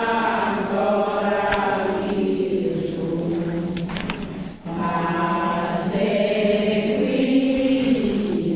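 Slow sung chant, with voices holding long notes in phrases and a short break between phrases about four and a half seconds in.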